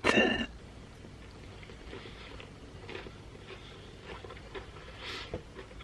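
Faint sounds of someone eating fast food: quiet chewing with small scattered clicks and a brief soft rustle near the end.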